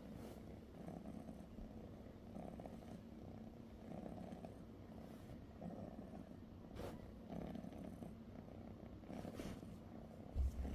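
Persian cat purring steadily, the purr swelling and easing with each breath about every second and a half. A brief low thump comes near the end.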